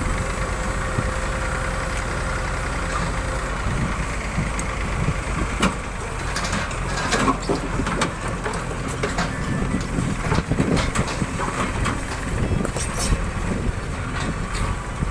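JCB 3DX backhoe loader's diesel engine running steadily, with a run of sharp knocks and clanks through the middle stretch.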